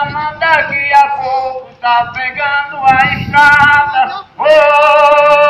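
A solo voice singing a melody in short phrases, then holding one long, steady high note that starts near the end.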